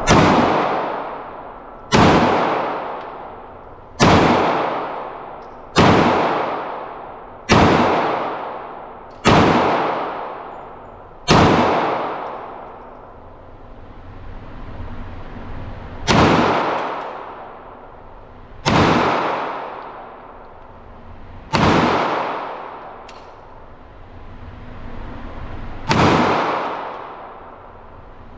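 Firearm shots fired one at a time, eleven of them, about two seconds apart for the first seven and then more slowly. Each shot echoes and dies away over a second or more.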